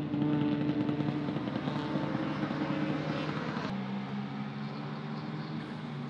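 Racing hatchback engines running at steady high revs through a corner. A little past halfway the sound cuts abruptly to a different, lower-pitched engine note.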